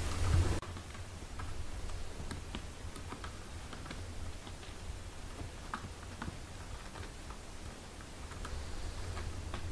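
Soft, irregular little clicks and smacks of newborn kittens suckling at their mother. A louder low rumble carries over into the first half-second and stops abruptly.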